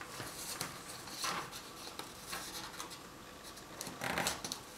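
Paper rustling and rubbing as hands fold and crease a square of origami paper, with short crinkles about a second in and again near the end.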